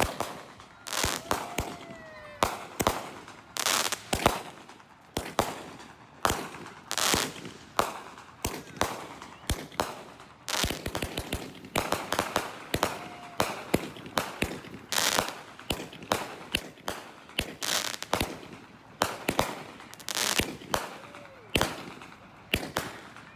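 Fireworks going off in quick succession: sharp bangs and crackles about one to two a second throughout, with a couple of tones gliding downward in pitch.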